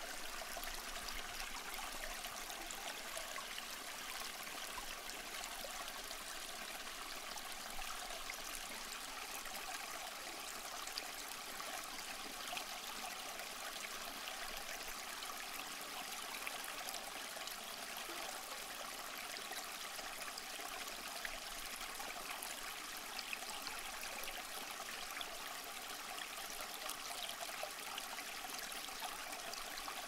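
Tabletop water fountain running: water trickling steadily down its stepped tiers into the bowl.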